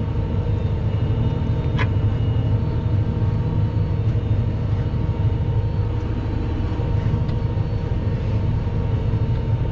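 Fendt 724 Vario tractor's six-cylinder diesel engine running steadily under load while pulling a plough through hard, compacted soil, heard from inside the cab. A single light click about two seconds in.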